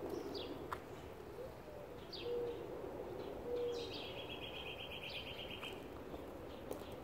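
Birds singing outdoors: a few short falling chirps, a rapid trill lasting over a second about four seconds in, and a couple of brief low steady notes, over quiet background noise.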